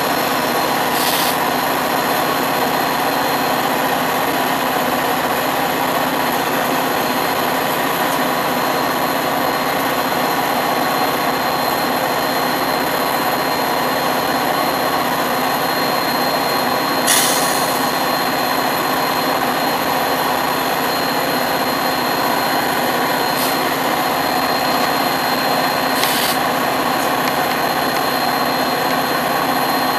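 Metra diesel-electric passenger locomotive's engine running steadily close by, a loud even drone with a few held tones in it. Three brief hisses break through, about a second in, midway and near the end.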